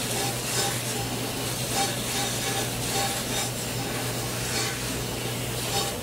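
Industrial dishwasher running: a steady low hum from its motor under the hiss and splash of water, with sudsy water flowing through the stainless-steel drain pan.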